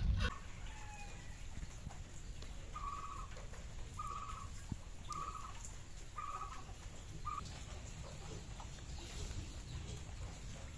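A bird calls five times, short even-pitched notes about a second apart, stopping a little after halfway, over a low steady rumble.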